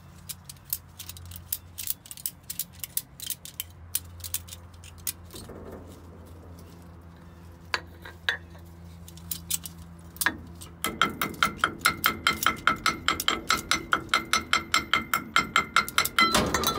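Hand-tool work on steel parts of a truck's rear differential. Scattered metallic clinks come over a steady low hum, then from about eleven seconds a fast, even run of ringing metal clicks, about five a second.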